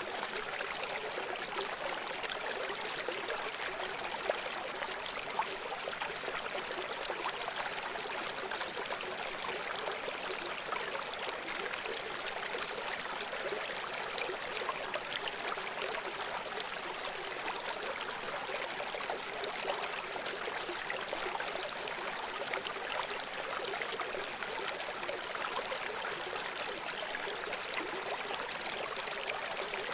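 Running stream: water trickling and babbling steadily over rocks, an even rush of water with many small splashes and no lulls.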